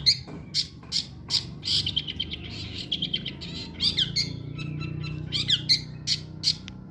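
Long-tailed shrike (cendet) giving a string of short, harsh, scratchy calls, about two a second, breaking into a denser run of chatter midway.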